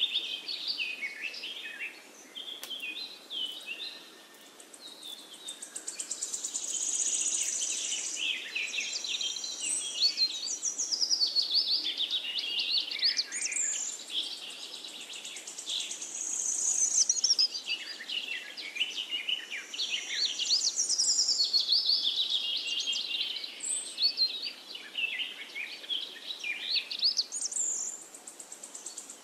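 A songbird singing a long, continuous warbling song of quick high chirps and trills.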